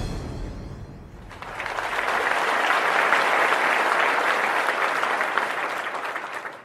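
Applause from a crowd, coming in about a second and a half in, holding steady, and dying away near the end, just after the last of the credits music fades out.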